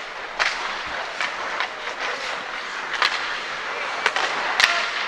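Live ice hockey play: skates scraping and gliding on the ice under a steady rink hiss, broken by about six sharp clacks of sticks, puck and boards, the loudest near the end.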